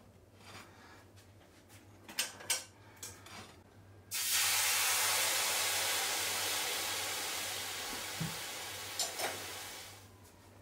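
A few light knocks, then about four seconds in a hot frying pan bursts into a loud steady hiss as it throws up a cloud of steam; the hiss slowly fades over about six seconds.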